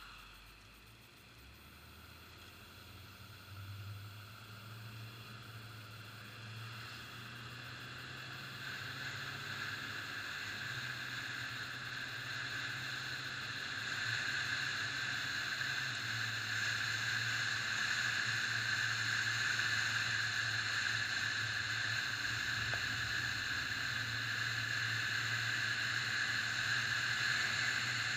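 Car driving on a road: a steady low engine hum under tyre and road noise, growing louder over the first half as it gathers speed, then holding steady.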